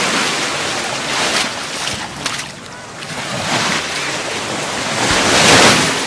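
Gulf of Mexico surf washing up on a sandy beach in repeated swells, the loudest wave breaking near the end, with wind on the microphone.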